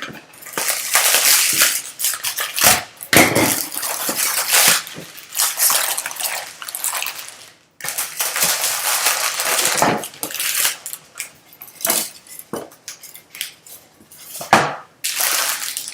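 Plastic and foil packaging of a baseball trading-card box crinkling and tearing as it is ripped open by hand, in irregular crackling spurts with short pauses.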